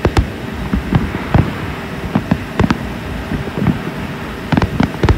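Fireworks shells bursting in a continuous show, a string of sharp, irregular bangs and cracks, several a second at times, over a steady low rumble.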